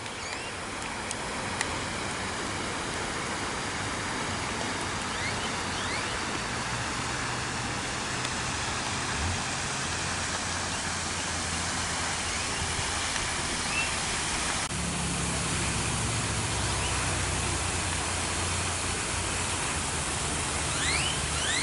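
Steady rushing outdoor noise, with a low hum through the middle and a few short, high, rising bird chirps near the start and again near the end.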